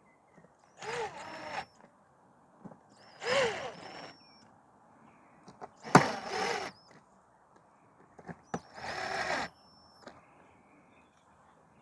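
Cordless drill driving screws into a portable generator's plastic side cover. It runs in four short whirring bursts, each under a second and spinning up as it starts.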